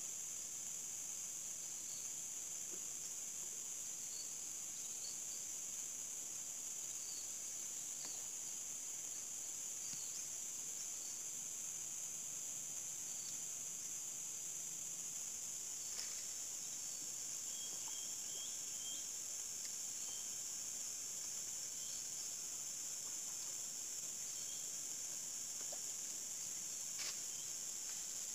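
Steady, high-pitched chorus of insects, with scattered short faint chirps and two soft clicks, one about halfway through and one near the end.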